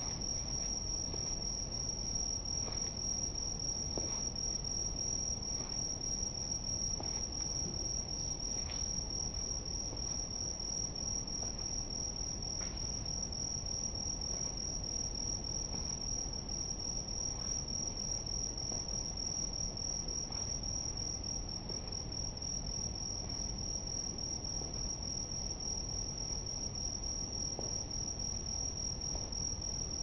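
Night insects singing one continuous, high-pitched trill without a break, over a low rumble of background noise. A few faint clicks come through here and there.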